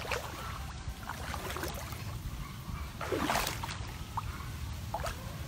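Water splashing and sloshing as someone wades through shallow floodwater: several short splashes, the loudest about three seconds in, over a steady low rumble.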